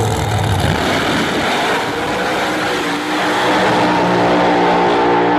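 Drag racing car engine running loudly, settling about three seconds in into a steady held note.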